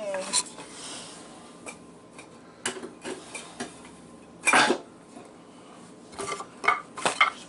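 Scattered metallic clinks and knocks as a stainless steel sink and its threaded-rod clamp are handled and shifted into place, the loudest knock about four and a half seconds in and a quick run of knocks near the end.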